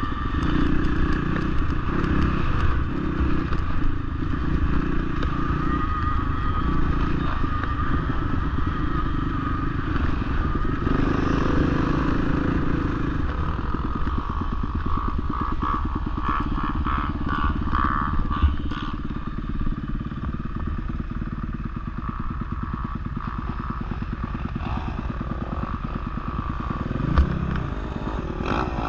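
Honda CRF450R dirt bike's single-cylinder four-stroke engine running while riding through snow. It is louder in the first half and eases off a little past the middle. There is one thump near the end.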